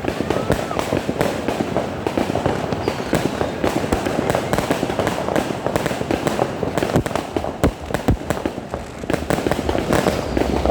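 New Year's fireworks going off in a dense, continuous barrage: many overlapping bangs and crackles every second.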